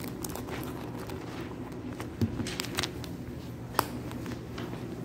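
Steady low hum of a shop interior with scattered light clicks and knocks of footsteps and phone handling. Two sharper knocks come a little after two seconds and near four seconds in.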